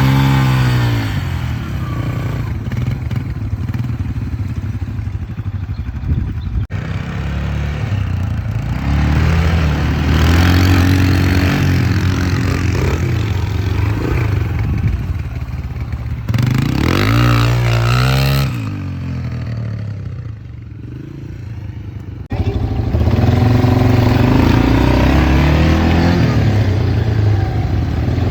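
An engine running and revving, its pitch rising and falling, with abrupt changes in level several times.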